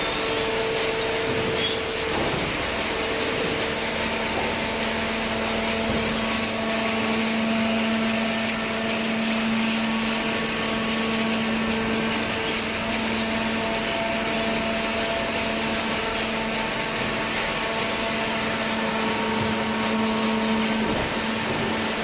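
Cardboard baler and its feed conveyor running: a steady mechanical hum with a constant low tone and a higher tone that comes and goes, over a broad hiss.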